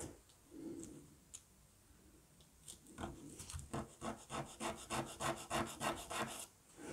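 A small wooden model part rubbed back and forth by hand on a sheet of sandpaper to finish its edge. A few light strokes come first, then from about three seconds in a quick, even run of about four strokes a second.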